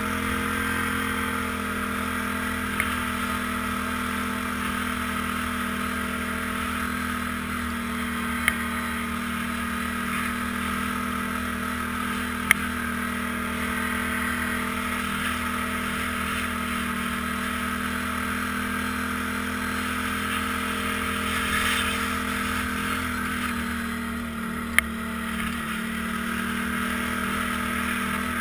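ATV engine running at a steady cruising speed while riding a snowy trail, heard up close from a camera mounted on the machine. A few brief sharp knocks cut through it.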